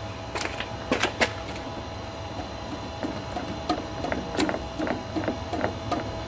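Footsteps on concrete, then the rubber primer bulb on a Tecumseh lawnmower engine pressed over and over, about three presses a second, priming fuel into the carburettor for a start.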